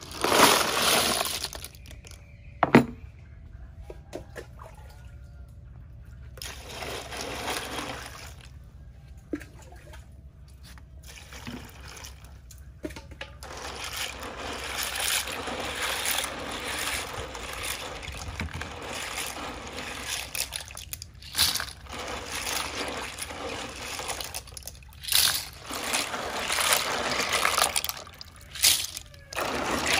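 Small clams being washed by hand in a plastic basin of water: water sloshing and trickling as handfuls are scooped and rubbed, with the shells clicking against each other. At the very start a heap of clams is tipped into the basin, and a sharp knock follows a couple of seconds later.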